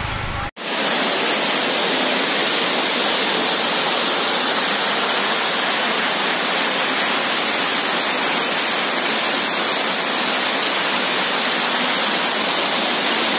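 Water spilling over a dam's stepped concrete spillway and churning over the rocks below: a steady rush that starts abruptly about half a second in.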